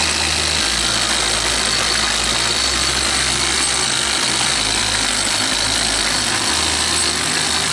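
Cordless drill running steadily, spinning a long mixing paddle in a water cooler while water from a large plastic jug pours in: a loud, even whir with a splashing hiss.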